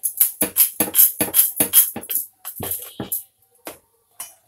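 Wooden rolling pin working dough back and forth on a wooden rolling board, a quick run of clacking strokes about five a second with a short break past the middle, stopping a little after three seconds in.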